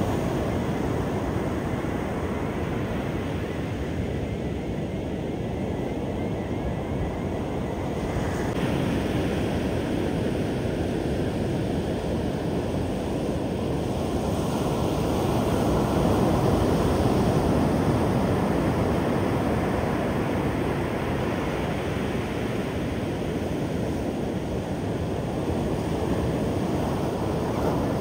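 Ocean surf: waves breaking offshore and washing up the beach in a steady roar, swelling a little louder about halfway through.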